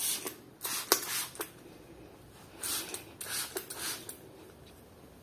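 Hand trigger spray bottle spritzing scent onto a fabric sofa cover: about five short hisses, a couple of them in quick succession near the middle, with faint clicks of the trigger.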